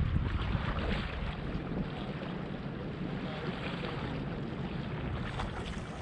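Wind buffeting the microphone, with a steady rush of rippling water against the shore.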